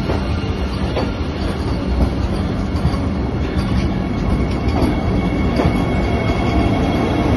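Vande Bharat Express electric multiple-unit train rolling slowly along the platform: a steady low rumble of the coaches with a faint high steady tone and scattered clicks.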